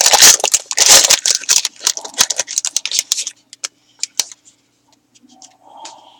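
Trading card pack wrapper crinkling loudly as it is torn open and handled for about three seconds. A few light clicks from handling the cards follow, then it goes nearly quiet.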